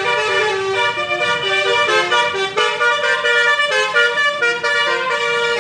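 Tour bus's basuri musical air horn playing a tune, its loud horn tones stepping from note to note several times a second.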